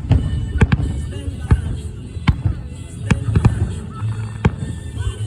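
Fireworks going off in an irregular series of sharp bangs, about ten in five seconds.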